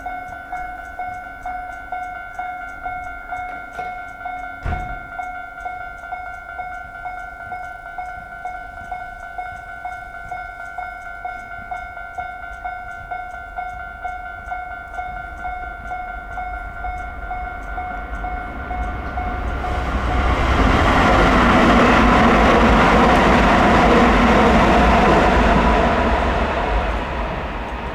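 JR standard single-tone level-crossing alarm, an electronic ding pulsing about twice a second. From about two-thirds of the way in, a train passes over the crossing and its running noise swells loud for several seconds, drowning the alarm, then fades near the end. A single knock sounds about five seconds in.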